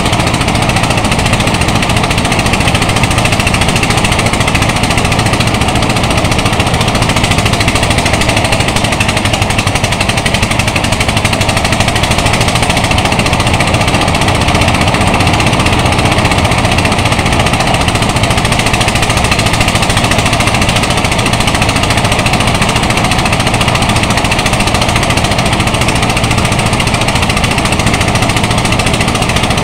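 Engine-driven rice thresher running steadily at a loud, even pitch while bundles of harvested rice stalks are fed into its threshing drum.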